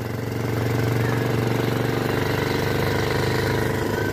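Motorcycle engine running steadily while riding, a low drone with a fast, even pulse.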